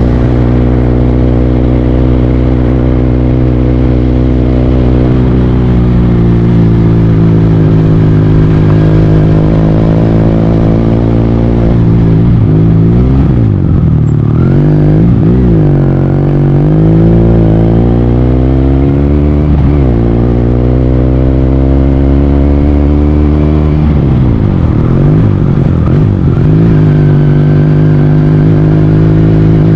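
Motor vehicle engine running steadily on the road, its pitch dipping and climbing again a few times about halfway through and once more near the end as it slows and speeds up.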